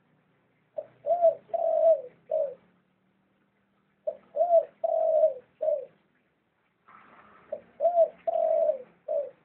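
Dove cooing: three repeated phrases of about four low coos each, a short note, two longer drawn-out ones and a short closing note, coming roughly every three and a half seconds.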